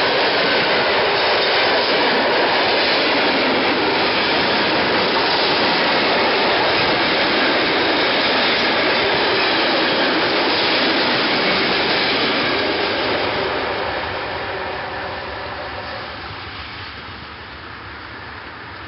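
Loaded log wagons of a freight train rolling past on the rails, a steady loud noise that fades away from about 13 seconds in as the end of the train passes.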